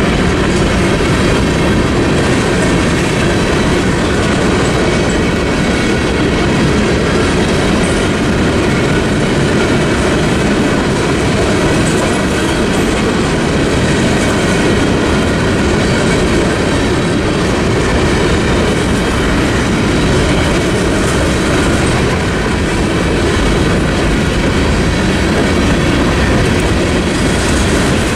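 Freight train boxcars rolling steadily past, steel wheels clacking over the rail joints above a continuous loud rumble.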